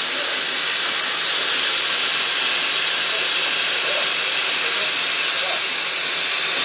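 Steady hiss of air from a Bridgeport Torq-Cut TC4G CNC vertical mill as its tool carousel goes to its home position.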